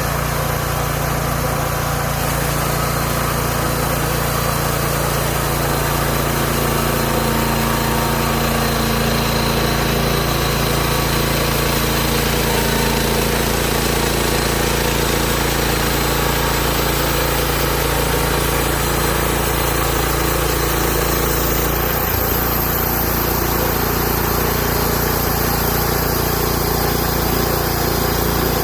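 The engine of a Hud-son Homesteader 30 band sawmill running steadily, its tone shifting about 22 seconds in.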